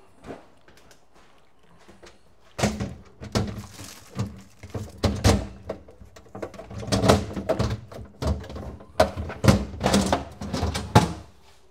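Things being moved about in a refrigerator during cleaning: a busy run of thunks and clatters that starts about two and a half seconds in and goes on for most of the rest.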